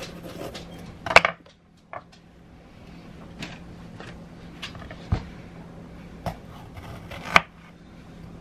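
Kitchen handling sounds during food prep: a handful of irregular knocks and clinks of utensils and dishes on the counter, the loudest about a second in and near the end, over a steady low hum.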